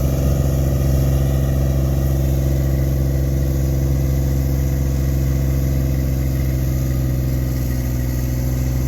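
New Holland MC35 compact tractor's engine running steadily at a constant speed, with no change in pitch or level.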